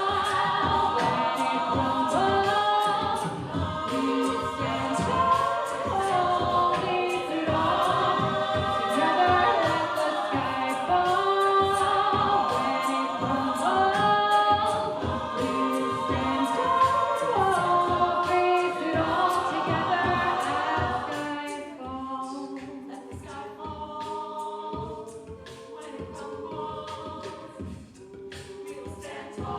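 A cappella vocal group singing sustained chords in close harmony; about two-thirds of the way through, the voices thin out and get quieter.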